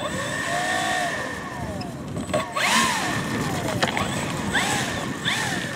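Electric RC aerobatic plane's motor and propeller whining up and down in pitch in several short throttle blips as it taxis on the runway.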